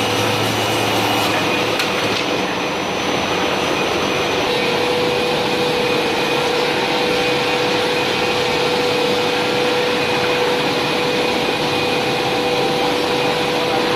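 Large CNC band saw for wood running: a steady machine noise with a constant hum over a broad hiss. The higher hiss drops back about two seconds in.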